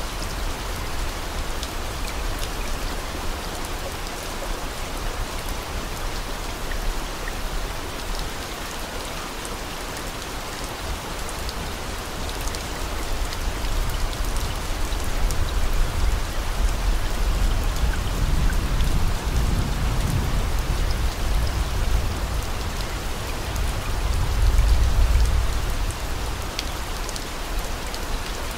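Steady rain noise, a dense even patter, with a low rumble swelling up about two-thirds of the way through and again near the end.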